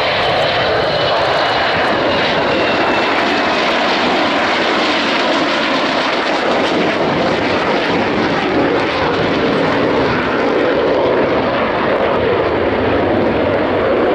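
Two Dassault Mirage 2000 jets flying past in close formation, their single SNECMA M53 turbofans giving a loud, steady roar, with a high whine sliding slightly down in pitch over the first couple of seconds.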